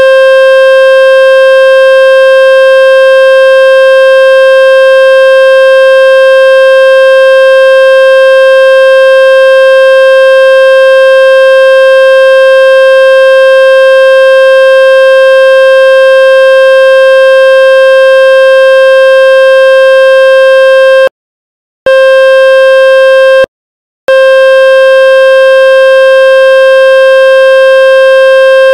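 Loud, steady electronic test tone with a buzzy edge: a water-eject tone played through a speaker to shake water out of a wet phone speaker. It drops out briefly twice, about three-quarters of the way through.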